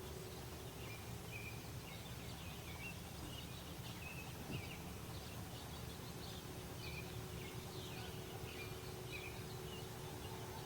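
Outdoor ambience: a steady low rumble and faint hum, with scattered faint chirps of small birds through the middle.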